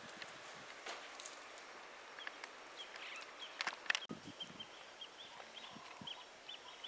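African elephant browsing in trees: twigs and branches crack and leaves rustle, with the sharpest crack about four seconds in. A bird chirps in short, quickly repeated notes through the second half.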